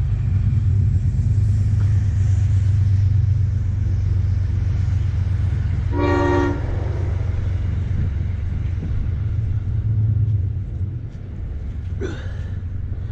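A steady low rumble, with a short pitched toot about six seconds in.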